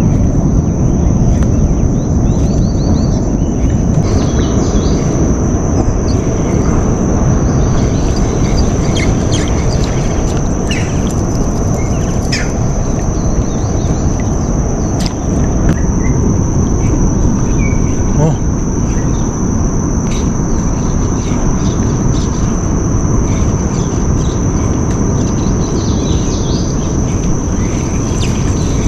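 Outdoor ambience of a mangrove channel: a loud, steady low rumble of noise, with an unbroken high insect drone and scattered short bird chirps.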